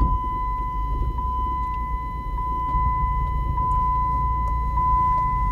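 A steady high-pitched electronic beep, one unbroken tone held for about six seconds, over the low rumble of the minivan driving.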